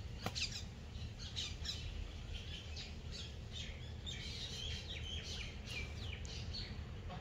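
Small birds chirping and calling over and over: short high calls, several falling in pitch, over a steady low background rumble. A sharp click sounds about a third of a second in.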